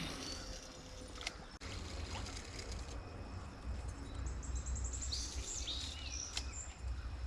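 Outdoor creekside ambience: a steady low rumble, with a bird singing a quick trill of even notes about four seconds in, followed by a few chirps and short slurred calls. A few faint clicks come through.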